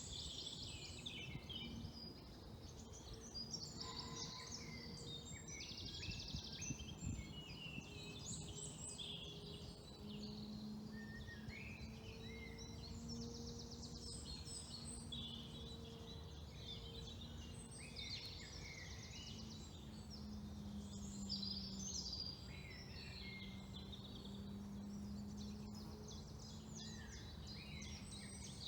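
Several wild songbirds singing at once: overlapping songs, trills and rapid repeated chirps throughout. Under them runs a faint low steady drone, clearer from about ten seconds in.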